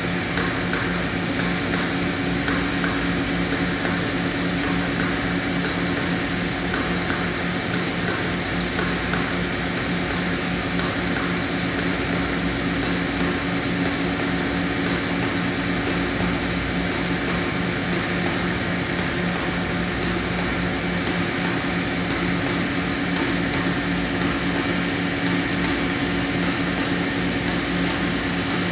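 Sinker electrical discharge machine at work: a steady machine hum with a high thin whine, overlaid by rapid, irregular ticking crackle of the spark discharges eroding the metal.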